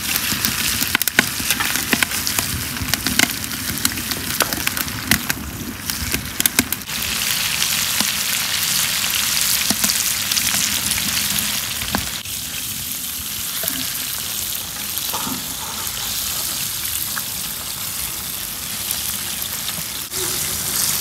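Pieces of floured bream sizzling in hot oil in a wide pan, a steady dense sizzle. Clicks and scrapes of a metal spatula against the pan come through the first several seconds, and the sizzle swells louder from about seven seconds in, then eases a little.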